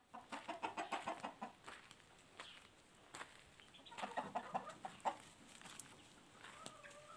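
Chickens clucking in quick runs of short clucks, about a second in and again around four seconds in, with a longer drawn-out call near the end.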